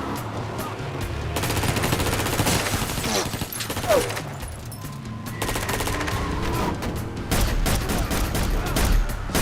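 Several bursts of rapid automatic gunfire in a film action mix, over a low rumble and a music score.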